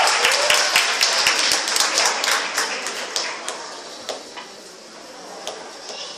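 Audience applause, dense at first, that thins out after about three seconds to a few scattered claps.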